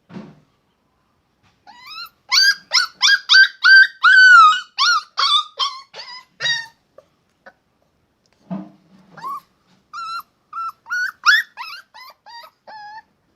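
A dog giving a rapid string of high-pitched yips and yelps, about a dozen in quick succession. After a pause comes a short low growl, then another run of yips.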